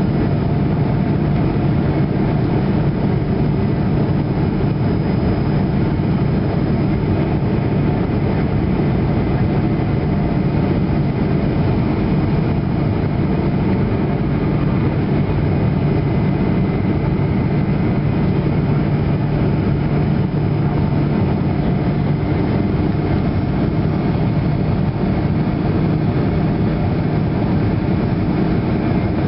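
Steady jet engine drone and airflow of a Boeing 737 in flight, heard inside the passenger cabin: a constant low hum with a few faint steady tones above it, unchanging throughout.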